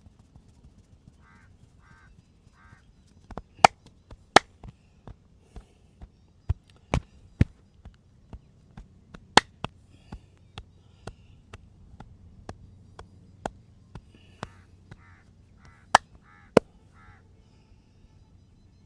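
Sharp hand slaps and chops of a percussive head massage, coming irregularly about two a second, the loudest pair near the end. Crows caw in the background three times early on and again near the end.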